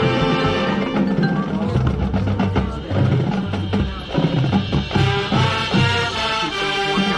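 Marching band playing: held chords over percussion hits, with mallet percussion notes in the second half.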